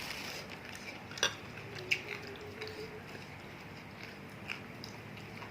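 Spoon clinking against a bowl: two sharp clinks a little over a second in and about two seconds in, then a few fainter ticks, as the last of the bowl is scraped up.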